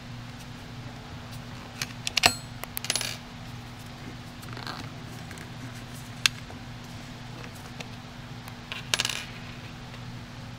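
Small metal clicks and clinks as the screws are worked out of a metal hitch lock and set down, in a few short clusters, over a steady low hum.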